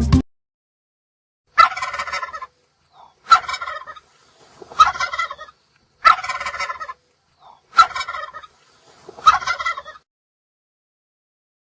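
Turkey gobbling: six separate gobbles of under a second each, about one every one and a half seconds.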